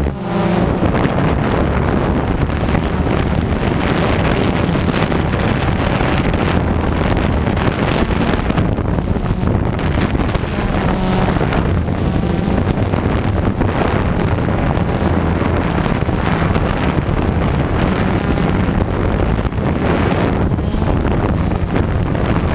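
A drone's motors and propellers whir steadily, picked up by the camera on the drone itself. Heavy wind buffets the microphone over a low, even motor hum.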